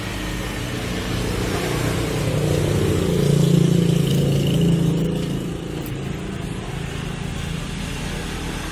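Motorcycle engine running steadily, growing louder for a couple of seconds around the middle, then settling back.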